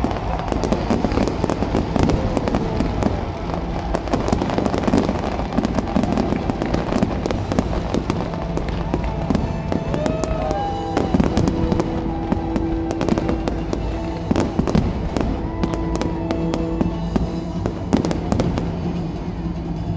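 A dense barrage of fireworks, sharp bangs and crackles one after another, with stadium music playing underneath. The music's held notes come through more clearly in the second half.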